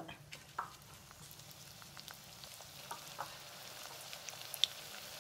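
Potato sticks deep-frying in hot oil in a wok, a steady sizzle with scattered crackles and pops that grows louder as more sticks go in. This is the second, high-flame fry that turns them crisp and golden brown.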